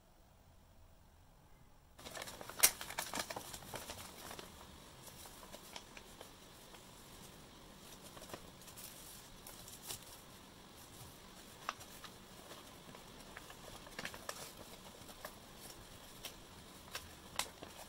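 Brown paper food wrapping being unfolded by hand, crinkling and rustling with many sharp crackles, starting about two seconds in; the loudest crackle comes just after.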